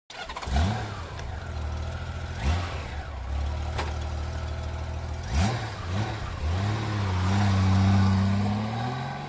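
Motorcycle engine revved in several sharp throttle blips, then held at higher revs for the last few seconds.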